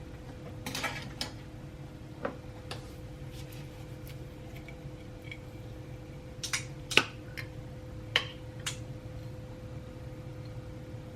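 Dishes and cutlery clinking and knocking now and then over a steady low hum, with the sharpest clink about seven seconds in.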